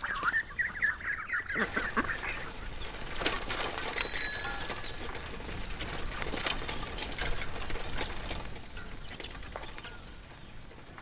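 A duck quacking in quick runs of calls for the first two seconds, then a single bicycle bell ring about four seconds in, followed by faint rattles and clicks.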